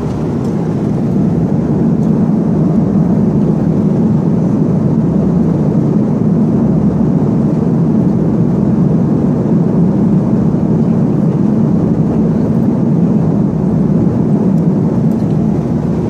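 Steady, deep drone of a jet airliner in flight, heard inside the passenger cabin.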